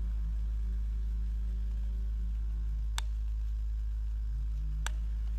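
Homemade hair-spray-can Stirling engine running, a steady low hum with a fainter tone above it that wavers, dipping about halfway through and returning near the end. Two sharp clicks about two seconds apart.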